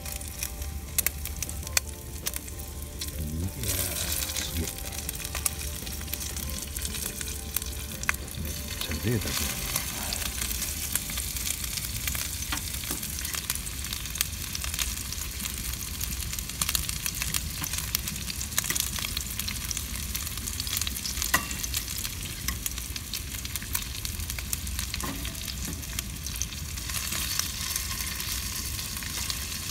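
Food sizzling in a frying pan: a steady crackling hiss full of small pops, growing louder about four seconds in.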